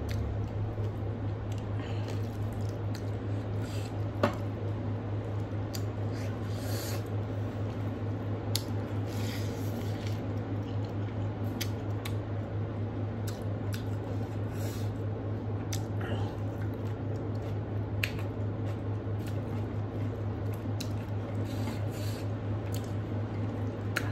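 Wet, squishy sounds of rice and curry being mixed and squeezed by hand on a steel plate, with chewing and scattered small clicks, over a steady low hum.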